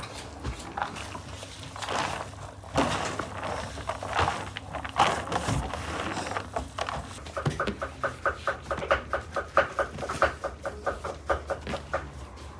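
Hands squelching and rustling through chopped raw meat and onion filling in a plastic tub. In the second half a quick, steady run of light taps comes in, about five a second.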